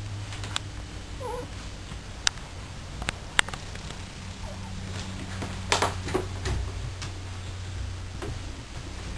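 A few sharp taps and slaps, a toddler's hands patting wet finger paint onto easel paper, spaced out over several seconds with a quick cluster past the middle, over a steady low hum.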